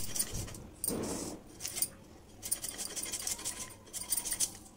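Tender banana stem being sliced against an upright aruvamanai blade by hand: a run of short, crisp cutting clicks, with metal bangles clinking as the hands work, and a duller thud about a second in.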